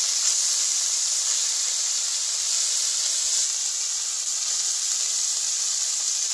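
Hot oil sizzling steadily as a pan of small whole fish fries in a metal kadai, the first side of the fish frying.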